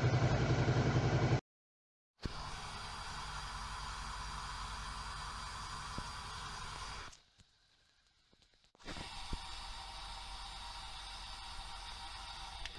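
Contact-microphone recordings of a Suzuki V-Strom 650's V-twin engine, cut together as separate short clips. A loud, low, pulsing engine sound stops abruptly just over a second in. After a short silence come two steadier, hiss-like stretches with a quiet gap between them.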